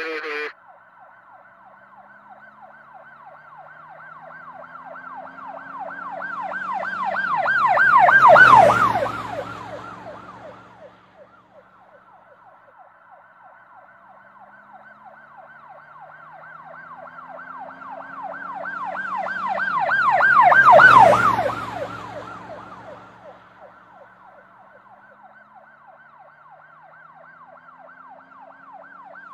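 Police siren in a fast yelp, passing by twice: each pass swells to its loudest with a rush of noise, about eight and about twenty-one seconds in, then fades away.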